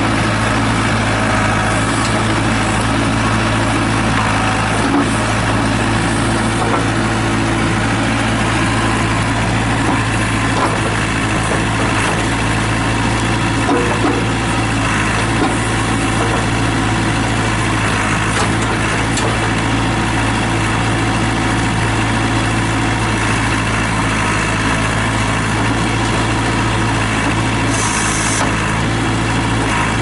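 1998 JCB 210S Series II backhoe loader's four-cylinder Perkins diesel running steadily while the backhoe arm digs and swings.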